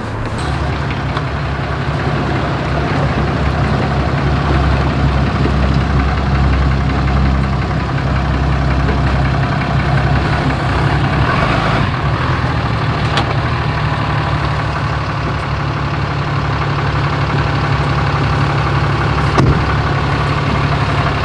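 Pickup truck engine idling steadily while the truck backs a boat trailer down a launch ramp, its low hum easing slightly about eight seconds in.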